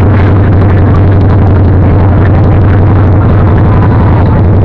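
Motorcycle engine running steadily, loud and close, with an unchanging deep hum.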